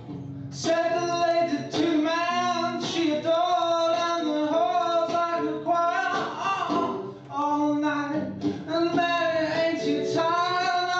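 A solo singer performing a song live with acoustic accompaniment, likely guitar, singing long held notes phrase after phrase.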